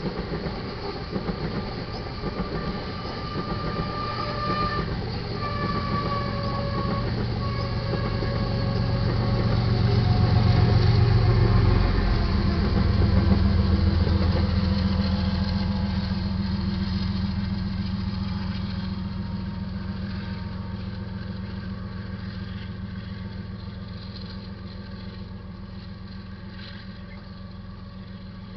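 Loaded iron ore cars rolling past with wheel clatter, then the train's rear distributed-power unit, a GE ES44C4 diesel locomotive, goes by. Its engine becomes the loudest sound about a third of the way in and drops slightly in pitch as it passes. The sound then fades steadily as the train moves away.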